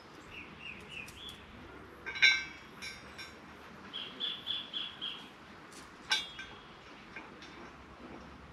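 Two sharp metallic clinks with a brief ring, about two seconds in and again about six seconds in, as the steel base of a cantilever umbrella is bolted down. Between them a bird calls in short high whistled notes: a run of four rising notes early on, then a quicker run of five or six.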